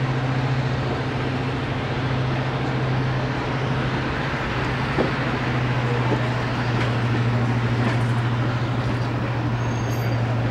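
Class 55 Deltic diesel locomotive's twin Napier Deltic two-stroke engines running with a steady low drone as the train moves off slowly, heard from a carriage window behind the locomotive.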